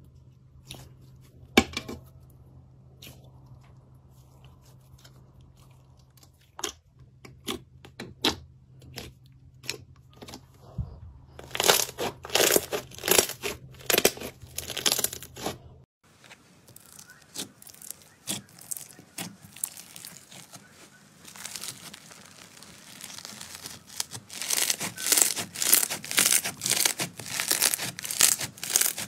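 Slime being squeezed and kneaded by hand, with sticky clicks and air-bubble pops. The pops are sparse at first, then come in fast crackling runs, first as foam slime is pressed into jelly slime and again in a fluffy slime after a cut.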